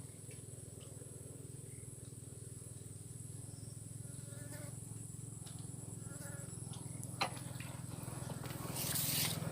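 Steady high-pitched insect drone over a low steady hum, with a few faint short calls and a brief rustle near the end.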